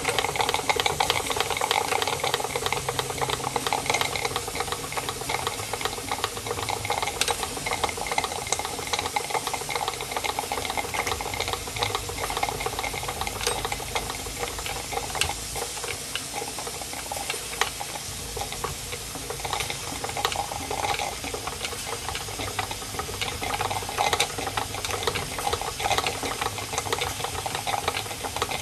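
Märklin 16051 live-steam model engine, a twin-cylinder engine with two flywheels, running steadily after being turned down to a slower speed: a continuous rattle of its moving parts mixed with the hiss of steam.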